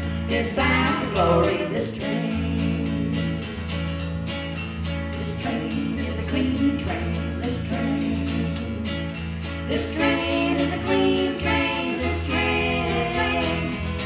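Live band music: women singing to a strummed acoustic guitar over electric bass guitar notes.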